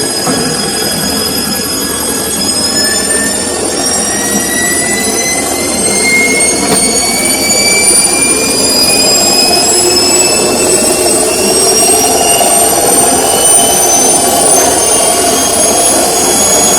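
Samsung washing machine's motor whining, the whine rising slowly and steadily in pitch as the drum speeds up in a spin, over the rumble of the tumbling drum.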